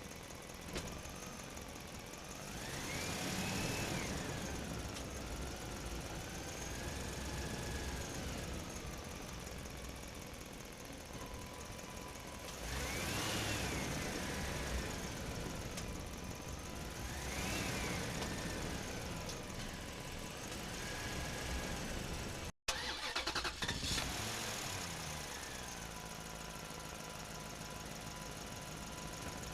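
A vehicle engine running, its pitch swelling up and falling back several times as it revs. A brief dropout and a few sharp clicks come about three-quarters of the way through.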